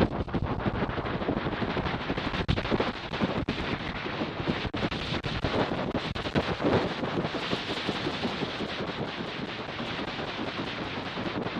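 Wind rushing over the microphone of a camera strapped to a flying bird, with a fast, irregular rattle of buffeting from the wingbeats shaking the camera.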